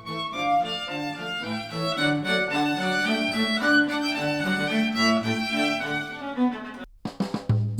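Instrumental music played back through headphones and picked up by microphones. It breaks off briefly about seven seconds in, and a new track with heavier bass starts.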